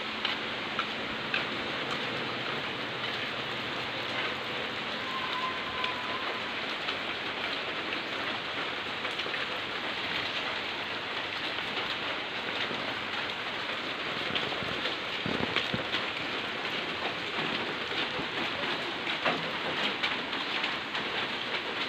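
Steady rain falling on foliage and the yard, with close drops tapping here and there.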